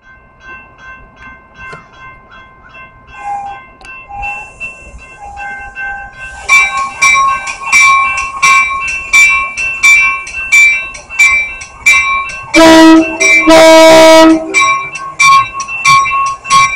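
Grade-crossing warning bell ringing in even, repeated strikes, faint at first and much louder from about six seconds in. An approaching Metra commuter train sounds its horn in two blasts of about a second each, a little after two thirds of the way through.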